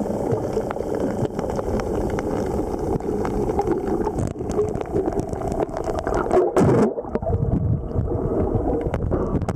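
Muffled underwater noise picked up through a submerged camera: a steady low rumble with scattered clicks and gurgling, and a louder rushing swell about six and a half seconds in.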